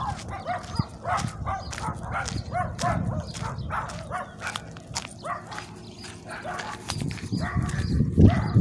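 Several dogs barking repeatedly, short barks at about three a second. A low rumble underneath swells near the end.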